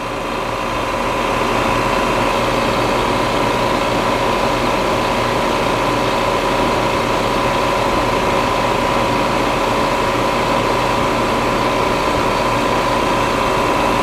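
Refrigerant recovery machine running steadily, pumping refrigerant into the recovery tank as the system is pulled down to about zero pressure. A steady hum with a constant whine, growing a little louder in the first second or two.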